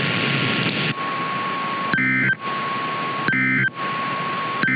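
Radio static with a steady tone through it, broken by three short digital data bursts about a second apart: the Emergency Alert System end-of-message code closing the broadcast alert.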